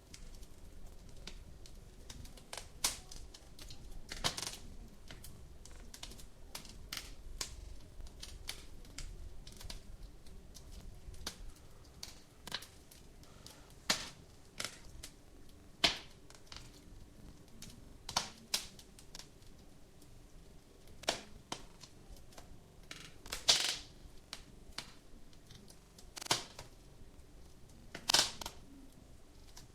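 Wood fire in a fireplace crackling, with irregular sharp pops and snaps every one to three seconds over a faint steady hiss; the loudest pops come about two-thirds of the way through and near the end.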